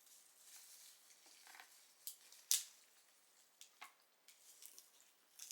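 Quiet eating sounds from a seafood boil: scattered wet clicks and mouth smacks, with one sharper click about two and a half seconds in.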